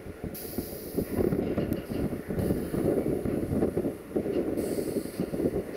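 A 060-EA (LE5100) electric locomotive approaching slowly with its train, a low uneven rumble of wheels and running gear. Short bursts of high hissing come about half a second in and again near the end.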